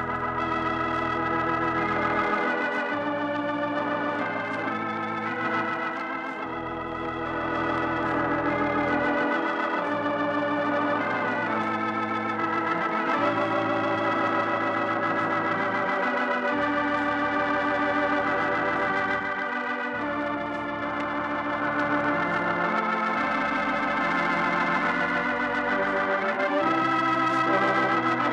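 Organ music closing the radio programme: sustained chords over a deep bass note that changes every few seconds.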